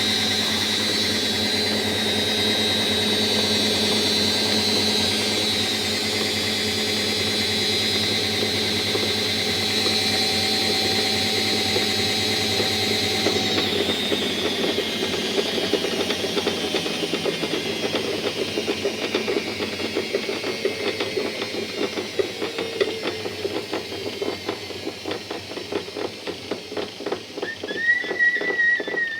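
Washing machine drum spinning with a steady whine, then coasting down from about halfway, the pitch falling as a rapid knocking sets in and slows with the drum. Near the end comes a short high-pitched squeal. Knocking and squealing at low drum speed, which the owner puts down to a worn drum bearing.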